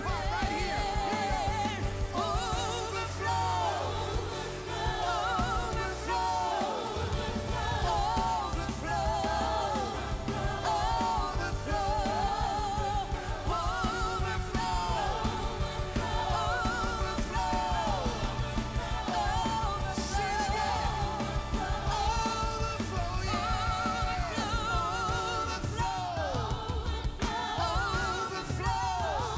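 Live worship band performing: lead singers with wavering vibrato over drum kit, bass and keyboard. The bass and drums thin out briefly about six seconds in, then come back in.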